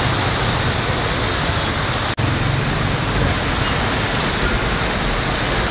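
Flood-swollen river rushing steadily, a dense even roar of fast muddy water, with a brief break about two seconds in.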